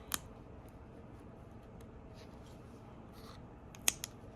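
Faint scraping and a few small clicks as the iPhone 8's glued-in battery is pried loose, with one sharper click near the end.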